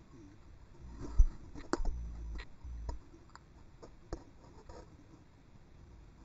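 Muffled clicks and knocks heard under water in a swimming pool through an underwater camera's housing, with deep thuds between about one and three seconds in.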